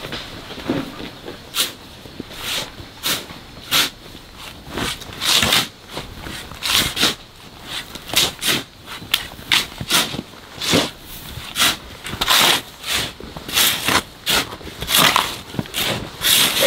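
An irregular series of short scraping or crunching strokes, about one or two a second, with a hissing, gritty edge.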